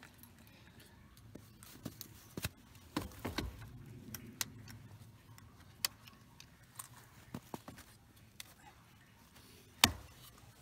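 Scattered clicks and knocks of a hose coupling and plastic valve being handled at the bottom outlet of a sap tote, with one sharp knock near the end.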